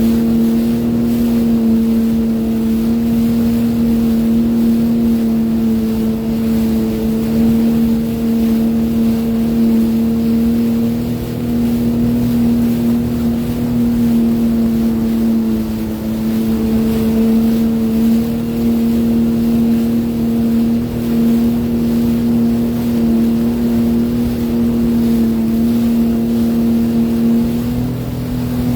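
A Sea-Doo Fish Pro personal watercraft's engine running at a steady cruising speed, holding an even pitch with brief slight dips, with water rushing past the hull.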